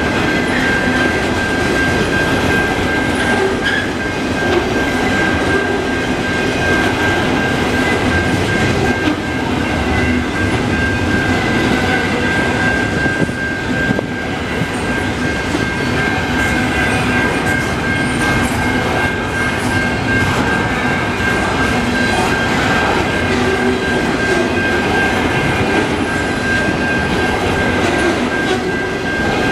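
Intermodal container freight cars (articulated double-stack well cars) rolling slowly past on the rails. The wheels clatter and clack steadily, with a continuous high-pitched ring running through it.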